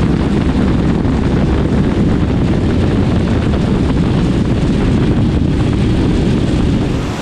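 Loud, steady wind rumble buffeting the microphone of a camera mounted on a BMW GS motorcycle riding at road speed through heavy rain.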